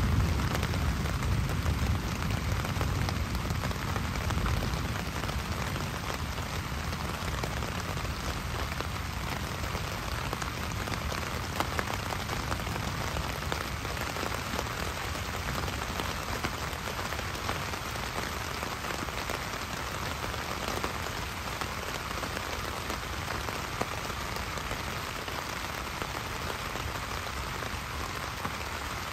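Steady heavy rain pattering on a hammock's tarp overhead and on the surrounding forest. A low rumble of thunder dies away over the first few seconds.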